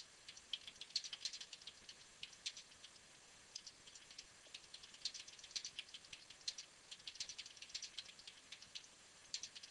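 Faint typing on a computer keyboard: an irregular run of quick key clicks, several a second, with short pauses between words.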